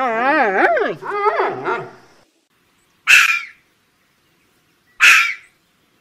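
A giant panda bleating: a wavering, up-and-down call lasting about two seconds. Then two short, harsh red fox barks, about two seconds apart.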